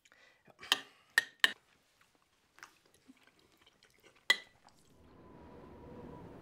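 Spoon and cutlery clinking against a metal pot and plates during a meal: sharp clinks about a second in and again near four seconds, with small faint ticks between. From about five seconds in, a soft steady wind hiss takes over.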